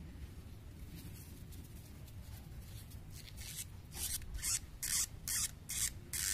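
Tissue paper rubbing over a small brass carburetor fitting as it is wiped clean. About three seconds in comes a quick run of about seven short papery rubs, a little under half a second apart.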